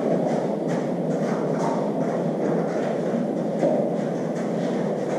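Steady low rushing noise throughout, with faint soft ticks scattered through it.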